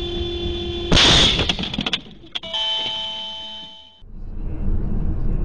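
A car horn sounds a steady note, then a loud crash of a collision about a second in. A ringing chime follows for about a second and a half, then steady road and engine noise from a car driving.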